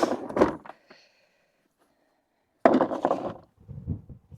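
Knocks and clatter of hand tools and gear being handled and set down while packing them away: a couple of sharp knocks at the start, then a louder clatter about two and a half seconds in, followed by a few softer thumps.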